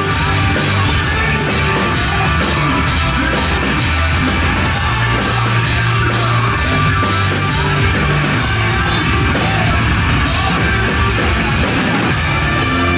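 Live rock band playing loud and heavy, with pounding drums, bass, guitar and vocals over them.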